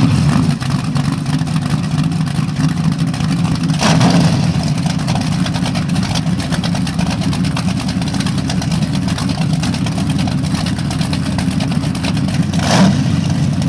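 Offshore powerboat engines, likely a Scarab 38 KV's, running at low speed through open through-transom exhausts: a steady deep rumble, with cooling water spraying out of the exhaust pipes. Two short louder surges come about four seconds in and near the end.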